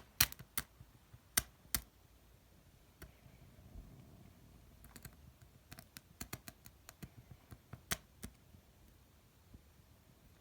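Light, sharp clicks and taps at an irregular pace, in little runs with quieter gaps between them, like small hard objects being handled.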